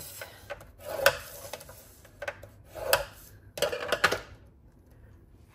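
A scoring stylus scraping along the grooves of a scoring board through cardstock, in a few short strokes with sharp taps between them as the card is turned and repositioned on the board.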